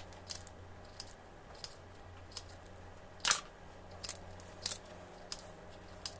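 Aviation snips cutting a disc out of thin 0.025 aluminum sheet: a series of separate sharp snips, spaced irregularly, the loudest about three seconds in.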